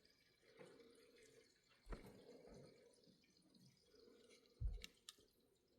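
Near silence with a few faint clicks and one soft knock as small model-locomotive parts are handled and fitted together.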